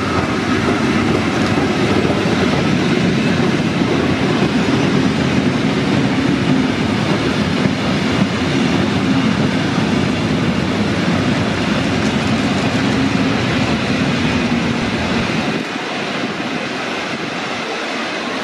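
Vintage Tait electric suburban train passing close by: a steady rumble of wheels on the rails that drops away near the end as the last carriage goes past.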